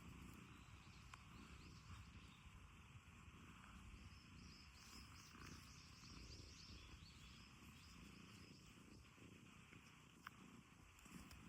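Domestic cat purring faintly, a low uneven rumble.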